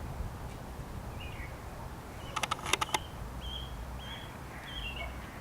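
Short, high bird chirps repeated several times over a steady low outdoor rumble, with a quick run of sharp clicks about halfway through.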